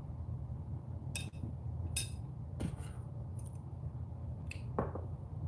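Close-miked eating of a mouthful of rice: several sharp, wet clicks and smacks spaced irregularly, one loudest about two seconds in, over a steady low hum.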